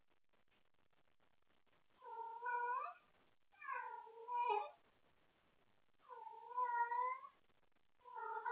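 Domestic cat meowing loudly: three drawn-out meows of about a second each, the first starting about two seconds in, then a fourth beginning near the end. It is calling out for someone to play with.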